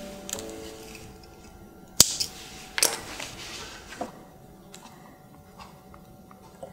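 Flat-jawed metal pliers clamping and pressing the leather edge of a zippered long wallet. There is a sharp click about two seconds in, a short scraping rasp a second later, another click, then light ticks.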